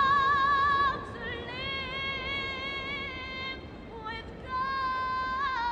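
A woman singing solo in long, held notes with vibrato and no clear words. The loudest note breaks off about a second in, and two more sustained notes follow.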